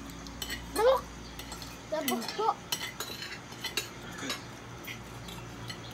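Spoons and forks clinking and scraping against ceramic plates and bowls during a meal, a scattering of sharp clicks. A short voice sound about a second in, and another about two seconds in, stand out above the cutlery.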